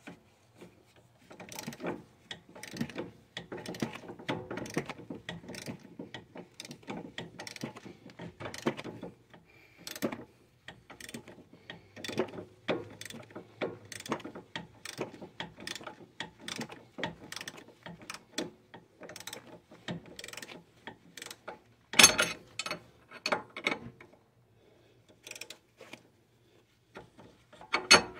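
Ratcheting wrench clicking in quick runs as it turns the nut on the front strut's lower mounting bolt, tightening it during strut installation. Twice near the end come louder, sharper metal clacks.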